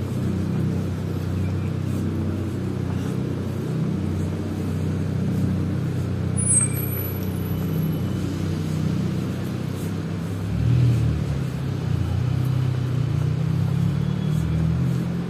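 Street traffic ambience: a steady low rumble of cars, swelling briefly about ten and a half seconds in, with a short high squeak about six and a half seconds in.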